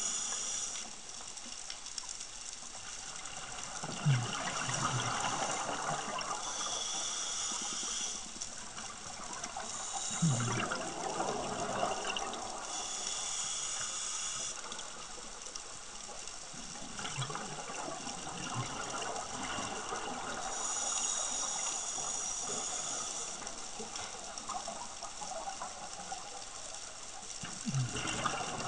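Scuba diver breathing through a regulator underwater: a hiss on each inhale, then a rush of exhaust bubbles on each exhale, over several slow breaths.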